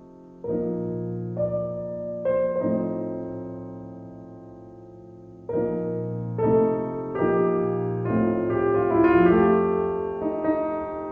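Piano music: slow chords, each struck and left to ring and fade, in a gentle unhurried rhythm.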